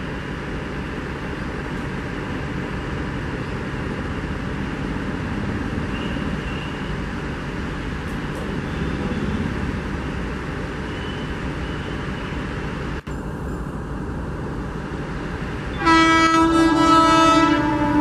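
Steady rumble of an approaching electric-hauled express train. About two seconds before the end, a loud train horn starts sounding and continues, its pitch stepping down partway.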